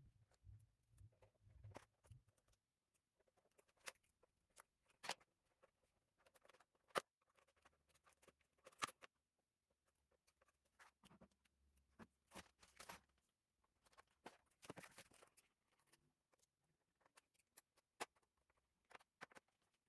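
Scattered light clicks and scratchy scrapes of hands working on a laptop's plastic case, coming irregularly with short pauses.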